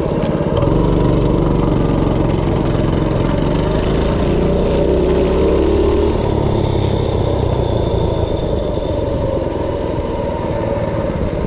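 DuroMax 208cc single-cylinder engine on a minibike at full throttle, pulling the bike hard from a standstill in a 0-to-30 mph acceleration run. It comes on strongly just after the start and holds a steady note for several seconds, then its note changes and drops a little about six seconds in.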